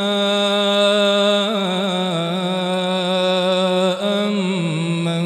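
A man chanting Quran recitation in melodic tajweed style, holding one long drawn-out note with small ornamental turns and stepping down in pitch a little after four seconds in.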